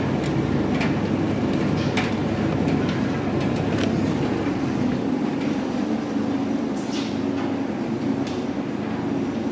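Commercial front-loading washing machines running: a steady low mechanical hum of the turning drums, with irregular light clicks and knocks from the tumbling load.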